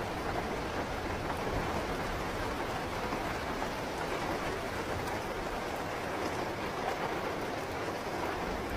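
Steady rainfall, an even hiss of rain falling on surfaces.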